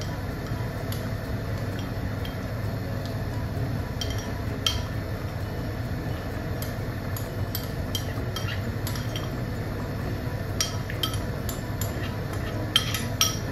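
Scattered metal clinks of a spoon or ladle against a stainless steel cooking pot as the soup is stirred, with a quick run of clinks near the end, over a steady low hum.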